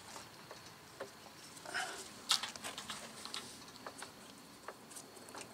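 Scattered light clicks, taps and rattles from gloved hands handling a newly fitted intercooler and its plastic mounting tabs, with a sharper click a little over two seconds in.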